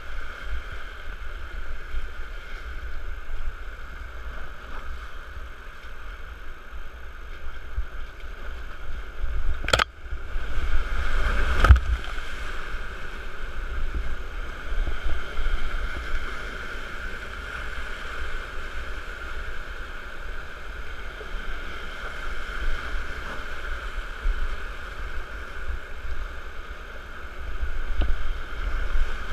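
Whitewater rapids rushing and churning around a raft's bow, a steady loud wash of water with a low rumble underneath. Two sharp knocks cut through, about ten seconds in and again, louder, about two seconds later.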